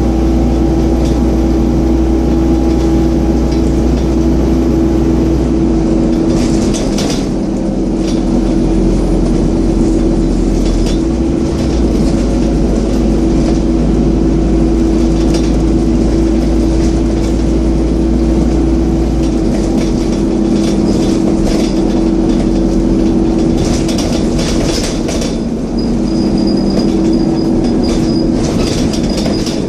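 Scania N230UD double-decker bus running, its engine cooling fan giving a loud steady whine over the low rumble of the engine. Short clatters come about a quarter of the way in and again near the end.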